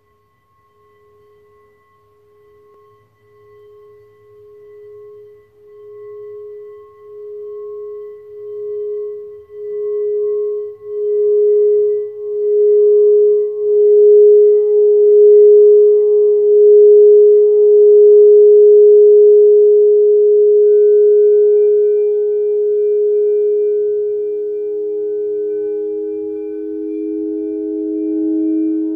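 Frosted quartz crystal singing bowl rimmed with a mallet. Its ringing tone pulses and swells louder over the first half, then holds steady. About two-thirds through, a second, lower-pitched bowl comes in and rises beneath it.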